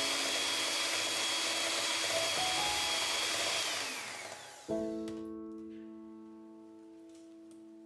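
Electric hand mixer running steadily with its beaters in cake batter, switched off about four seconds in, its whine falling as the motor spins down. A piano chord then sounds and slowly fades.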